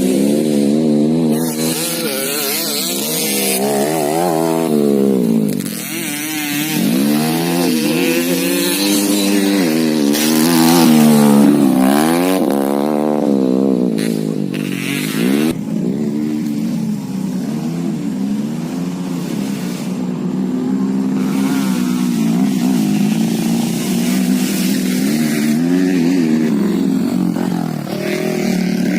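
Honda Win motorcycle with a swapped-in 130cc Yamaha engine running, its revs rising and falling again and again.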